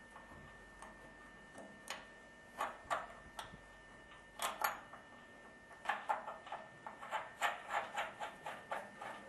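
Light metallic clicks and taps from handling and working a short piece of copper pipe and its fittings. A few separate knocks come in the first half, then a run of about three quick clicks a second near the end.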